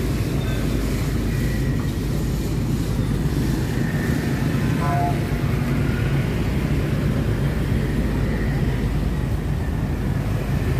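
Steady low rumble of street traffic, with a brief short tone about five seconds in.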